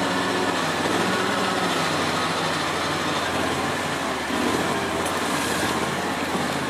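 Max IV 6x6 amphibious ATV's engine running steadily as the vehicle drives along, heard from on board.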